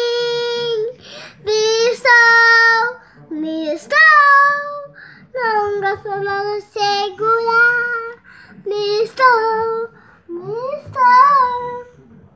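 A young girl singing unaccompanied: a long held high note at the start, then short sung phrases with brief breaths between them.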